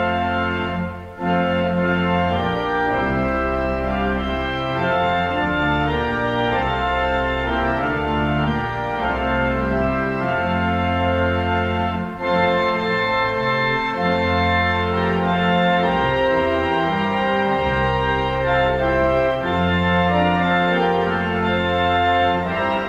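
Organ music: full held chords over long, deep bass notes, with short breaks between phrases about a second in and about twelve seconds in.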